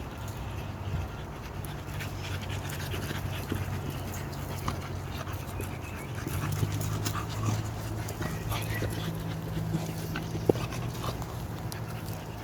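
American Bully dogs panting and moving about, with scattered light clicks and scuffs, over a steady low hum.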